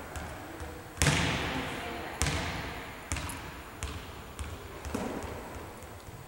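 Volleyballs thudding off a setter's hands and bouncing on a gym floor: a loud smack about a second in, then several lighter ones, each ringing on in the hall's long echo.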